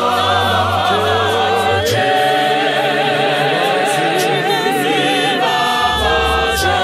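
Mixed-voice church choir singing a gospel hymn in harmony, with a wide vibrato on the held notes.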